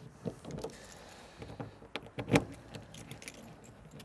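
Keys jangling and a few short clicks as the key lock of a motorhome's exterior storage hatch is turned and locked.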